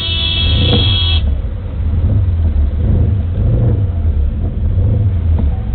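Background music cuts off abruptly about a second in, leaving a steady low rumble of vehicle engine and road noise from slow-moving traffic.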